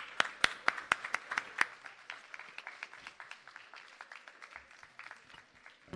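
Scattered applause from a small audience: a few loud, sharp claps close by at first, then lighter clapping that dies away over a few seconds.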